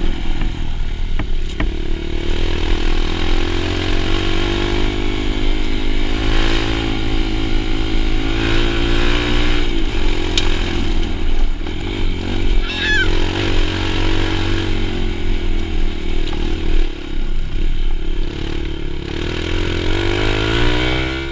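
Dirt bike engine running while it is ridden along a gravel trail, its pitch rising and falling with the throttle and gear changes. A brief rising squeak comes about 13 seconds in.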